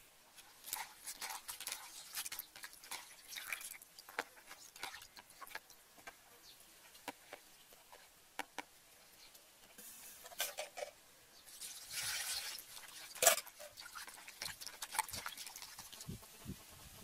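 Hands handling fresh leafy greens in a plastic colander: scattered light rustles and small clicks, louder for a moment about two-thirds of the way in, with one sharp click just after.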